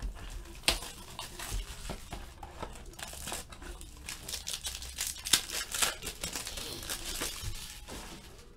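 Plastic shrink wrap being torn and crumpled off a sealed box of trading cards: irregular crinkling and crackling with a couple of sharp snaps.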